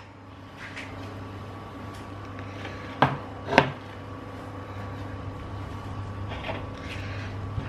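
Two sharp knocks about three seconds in, half a second apart, as a ceramic baking dish is handled on a glass hob, over a steady low kitchen hum.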